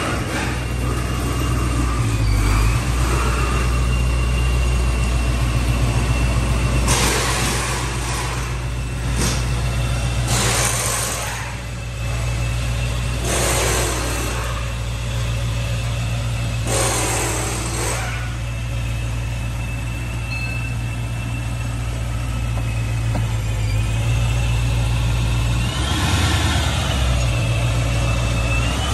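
Dodge Challenger's V8 engine idling with a steady deep rumble, broken by about four short, louder bursts of noise around the middle.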